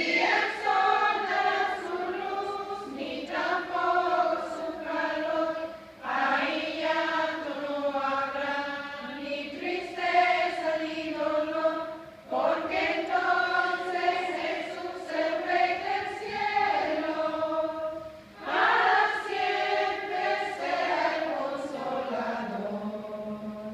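A choir singing, in long phrases with short breaks between them about every six seconds.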